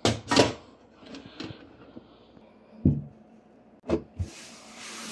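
Kitchen utensils, plastic spoons and a metal ladle, clacking against each other a few times as they are lifted out of a drawer. Near the end comes a soft, steady scrubbing hiss of a cloth wiping the drawer's wooden bottom.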